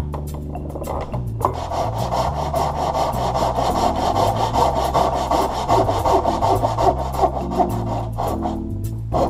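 Japanese pull saw ripping down into a hard maple board, with fast, even strokes that start about a second and a half in and stop near the end. Background music with a bass line plays throughout.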